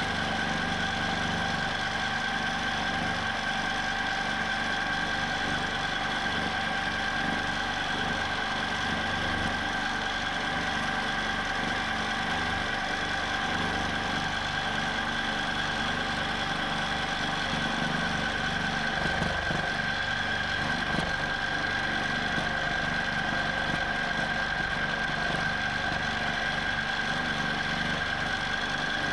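Q'nique 19 longarm quilting machine stitching steadily at constant speed, a continuous mechanical whir with a steady whine.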